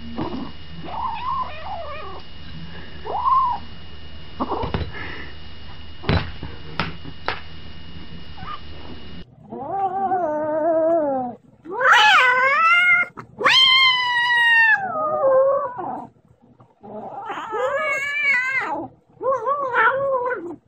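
A kitten's soft, high mews with a few sharp clicks, then, about nine seconds in, a kitten eating from a food bowl gives a run of loud, drawn-out yowls, several of them falling in pitch at the end.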